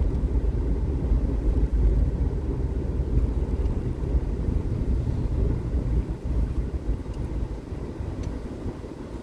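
Low rumble of a car's engine and tyres heard from inside the cabin while driving on a city street. It dies down over the last few seconds as the car slows to a stop at a red light.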